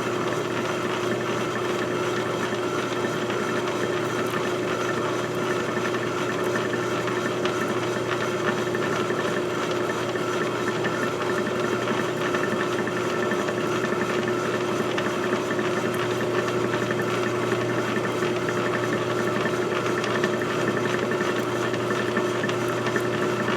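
A steady mechanical hum, like a small motor running, holding one pitch throughout.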